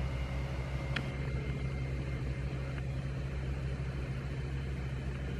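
A large engine running steadily with a low, even drone, the pitch not changing, and a faint click about a second in.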